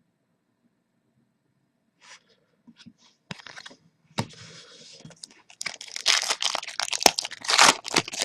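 Foil trading-card pack wrapper being torn open and crinkled, starting about two seconds in and getting louder and denser with sharp crackles over the last few seconds.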